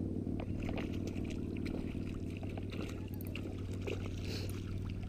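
Small splashes and drips of shallow estuary water, with light clicks, over a steady low hum.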